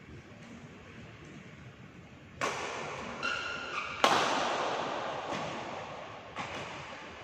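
Badminton rally: a shuttlecock struck by rackets three times in a reverberant hall. The loudest is a hard overhead hit about four seconds in, whose sound rings on and fades over the next few seconds. A brief high squeak comes just before it.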